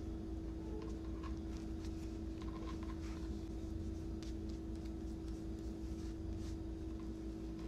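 Soft, scattered rustling and brushing of hands rolling a thin lumpia wrapper around its meat filling on a cutting board, over a steady low hum.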